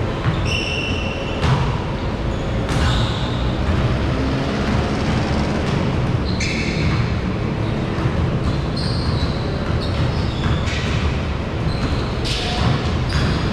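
Basketballs bouncing on a hardwood court in a large echoing gym, with short high sneaker squeaks several times.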